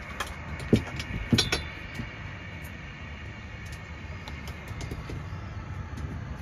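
Fishing rods knocking and clattering as they are stowed in overhead rod holders: a sharp knock just under a second in, a couple more in quick succession about a second later, then only light ticks. A steady low rumble lies underneath.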